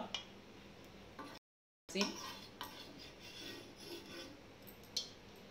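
Metal spatula scraping and rubbing across a hot cast-iron tawa as it spreads a little oil, with a couple of sharp clinks against the pan.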